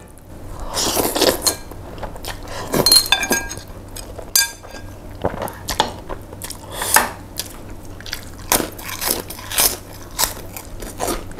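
Close-miked eating sounds: chopsticks clinking against a ceramic bowl a few times in the first half, then chewing with many sharp, crunchy clicks.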